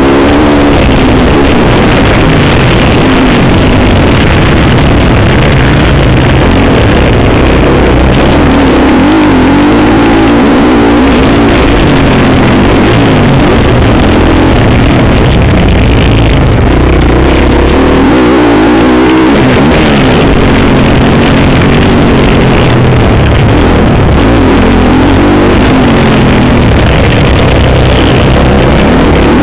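Motocross dirt bike engine heard from on board the bike, revs rising and falling again and again as the rider accelerates, shifts and backs off around the track. The sound is loud throughout.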